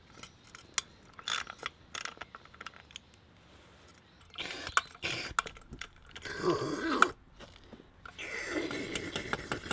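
Ratchet wrench and socket undoing bolts on an aluminium intake plenum: scattered metal clicks, then three stretches of rapid ratchet clicking, each about a second long.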